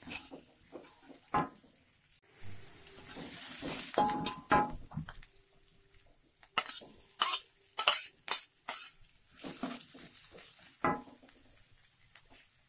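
Cooking utensil clinking and knocking against a pan while spices are stir-fried, in sharp irregular strikes, with a brief hiss about three seconds in.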